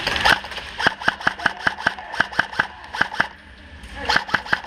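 Airsoft gun firing rapid single shots, about five a second, in two strings: one from about a second in and another starting near the end.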